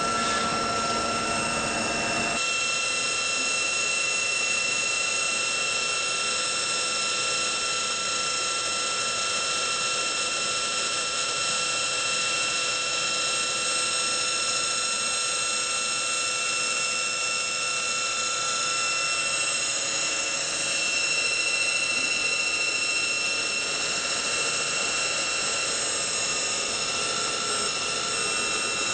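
Degen TBH-1000 deep-hole drilling machine running steadily, a mechanical sound with several steady high-pitched tones over a hiss. About two seconds in, a lower rumbling layer drops away.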